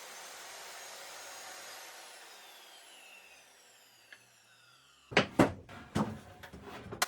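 A sliding table saw's motor and blade coasting down after switch-off, the whine slowly falling in pitch and fading over about four seconds. About five seconds in come several loud wooden knocks and clatter.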